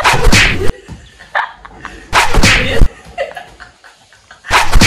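A man and a woman laughing hard, in three loud breathy bursts about two seconds apart.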